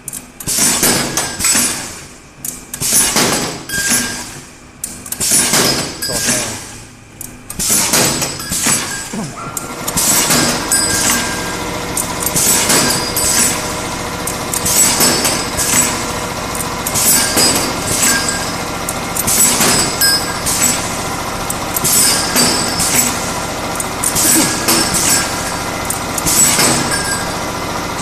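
Automatic stainless-steel tube cutting machine running through repeated cutting cycles. At first there are separate bursts of noise about a second apart. About ten seconds in, the machine settles into a continuous running sound with a steady tone, and a sharp, hissing burst repeats about every two and a half seconds as each length of tube is cut.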